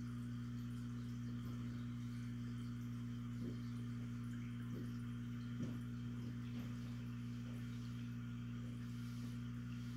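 Steady low electric hum of an aquarium pump, with a faint hiss above it and a few faint brief sounds near the middle.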